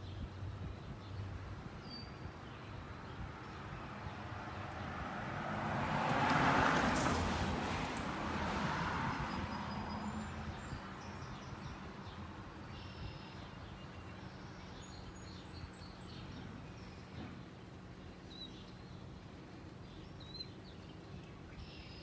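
1.5-ton Mitsubishi Electric ductless mini split outdoor unit running with a steady low hum. A car passes, swelling to its loudest about six to seven seconds in and fading by about ten seconds. Birds chirp now and then.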